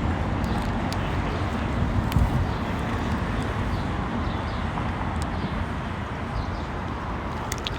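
Steady outdoor rumble of street traffic, with a few light clicks near the end.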